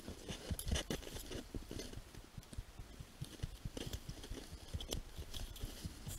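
Skis crunching and scraping over snow, with irregular knocks and rustles from the ski poles and the skier's jacket close to the camera.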